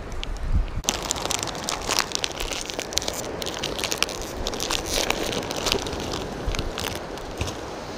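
Close crinkling and crackling handling noise, a dense run of small sharp clicks that starts suddenly about a second in and goes on irregularly.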